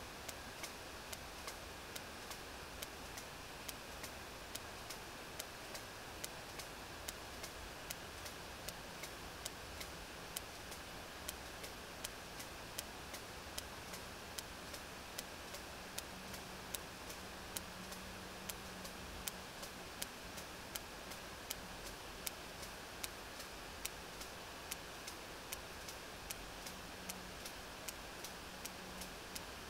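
Sperm whale regular echolocation clicks picked up by a deep-water hydrophone: sharp, evenly spaced clicks at about two a second over steady background hiss, the usual click train of a whale foraging at depth.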